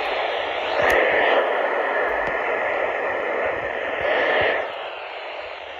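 Steady static hiss from a weather radio receiver after a warning broadcast ends, relayed through a voice call, with a faint steady tone in it; it drops away a second before the end.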